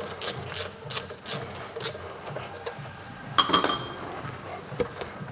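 Hand ratchet clicking in short, even strokes, about three a second, as the screws holding a plastic engine cover are undone. About three and a half seconds in comes a sharper knock with a brief ring, then a few light knocks as the cover is handled.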